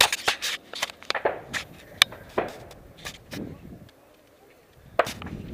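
Irregular sharp knocks and scuffs from a hiker's footsteps on wooden railway-tie steps and from handling of the camera, pausing for about a second near the end.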